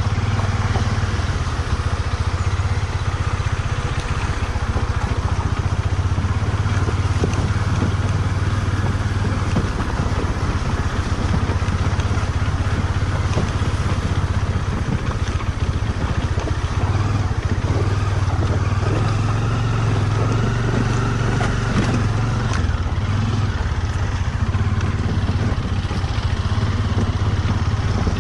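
Motorcycle engine running steadily while riding over a rough, rocky off-road track, with constant rattling and crunching from the bike and its tyres.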